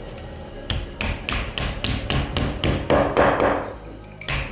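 Hammer tapping a plastic wall plug into a hole drilled in a plaster wall: a quick run of light strikes, about five a second, starting just under a second in and stopping shortly before the end.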